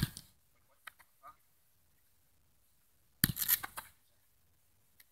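A football smacks sharply at the start, and about three seconds in comes a short cluster of thuds and slaps as a goalkeeper catches the ball in gloved hands.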